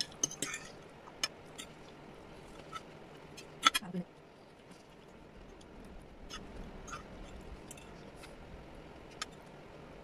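Metal forks clinking and scraping on a ceramic plate while eating: a scattering of light clicks, the loudest a little under four seconds in.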